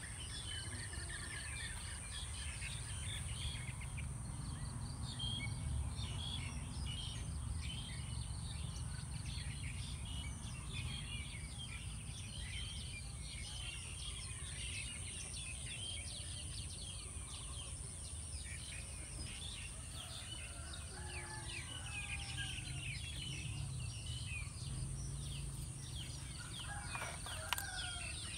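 Outdoor ambience of many small birds chirping and twittering, over a steady high-pitched whine and a low rumble. A few lower, gliding calls come in about two-thirds through and again near the end.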